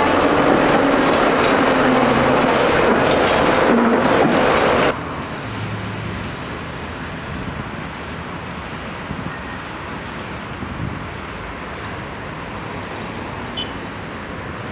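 Tram running along the rails, heard from inside the car: loud, dense running noise with a steady whine. About five seconds in it cuts abruptly to a quieter, steady outdoor hum of street traffic beside the tram line.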